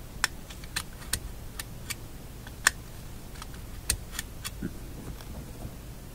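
Irregular small clicks and taps from hands handling the shadow meter and its magnet, about a dozen, with two louder ones near the middle, over a steady low hum.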